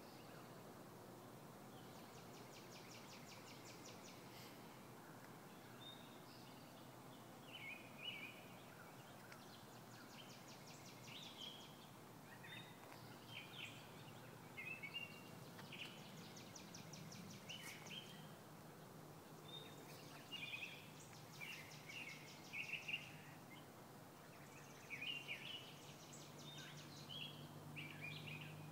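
Faint outdoor birdsong: several songbirds chirping in short phrases, with a fast trill coming back every several seconds, over a quiet steady background hush.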